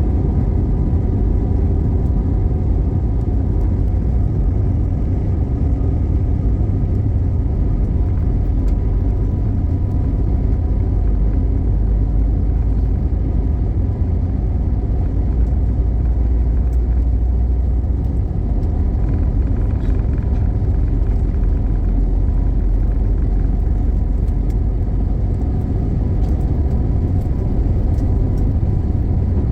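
Steady, loud low rumble of a moving vehicle, with no speech over it.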